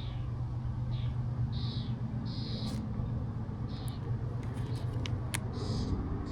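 Short high-pitched bird calls repeated every second or so over a steady low hum, with a few sharp clicks.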